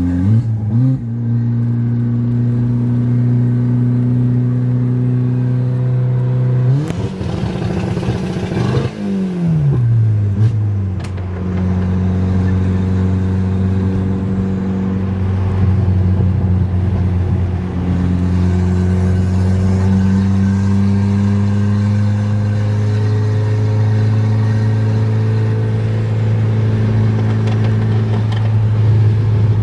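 Audi S3's 1.8-litre turbocharged four-cylinder heard from inside the cabin while driving at highway speed. The engine note rises briefly at the start, climbs again about seven seconds in, and sweeps down around nine to ten seconds. It then holds a steady drone, creeping slowly higher.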